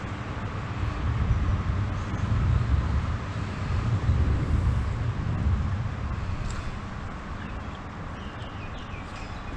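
Gusty low rumble of wind buffeting the microphone, strongest in the first half and easing off, over a steady outdoor hiss.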